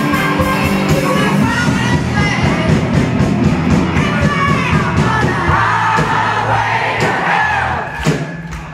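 Live rock band playing loudly, with electric guitars, drums, a singing voice and crowd noise mixed in. Near the end the music thins out briefly, as the song comes to an end.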